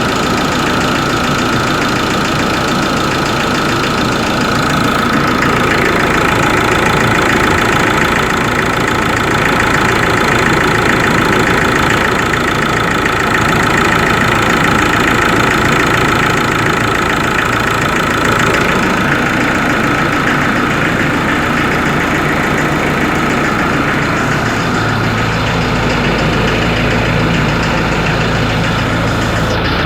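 Ford Ranger 3.0 diesel engine idling steadily with a noise that the owner hears when the engine is cold and that mechanics could not trace. A steady high tone sits over the running, and a deeper hum grows stronger about 25 seconds in.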